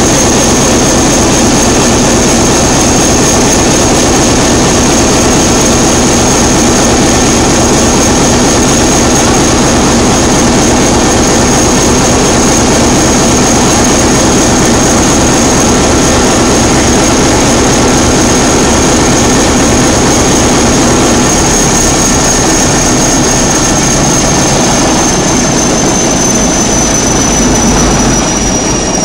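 Large MAN inline diesel engine running, loud and steady, with a high whine over the engine noise. Near the end the whine sinks slightly in pitch and the sound eases a little.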